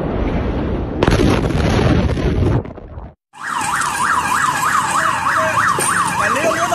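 The blast of the Beirut port explosion: a loud rush of noise about a second in that lasts a second and a half and fades. After a brief cut, a siren wails in a fast yelp, sweeping up and down about four times a second, with a second sweeping tone joining near the end.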